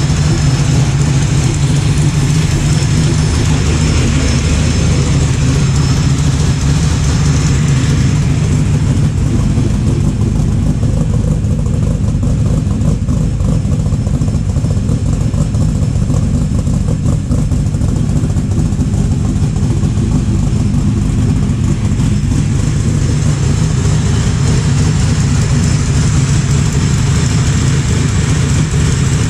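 Supercharged V8 of a 1993 Ford Mustang LX running at a steady idle.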